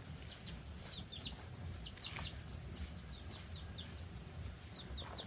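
Small birds chirping, a busy run of short, quick notes that each fall in pitch, several a second, over a thin steady high-pitched tone.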